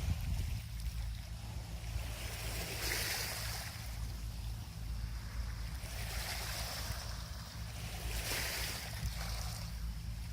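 Small sea waves washing onto the shore, swelling twice about five seconds apart, over a steady low rumble.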